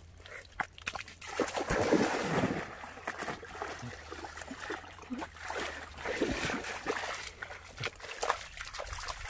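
Water splashing and sloshing in irregular bursts, loudest about two seconds in and again around six seconds in.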